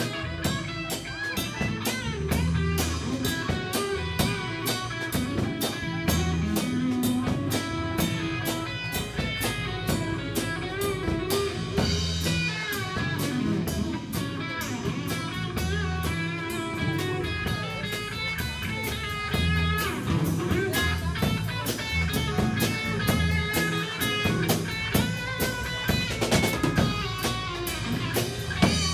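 Live band playing: two electric guitars over a drum kit keeping a steady beat, with a lead guitar line bending notes on top.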